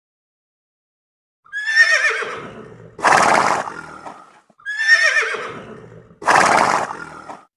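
Horse whinnying twice, the first about a second and a half in. Each time a high, wavering neigh runs straight into a loud, rough burst.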